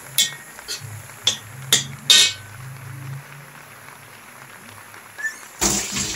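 Metal spatula clinking and scraping against a wok while ground pork is stirred: about five sharp clinks in the first two and a half seconds, over a low drone. A louder rushing noise starts near the end.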